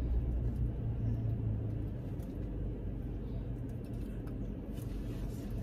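Low, steady rumble of a car's engine and road noise heard inside the cabin.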